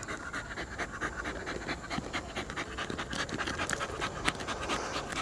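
Poodle panting in a quick, even rhythm, tired out from digging.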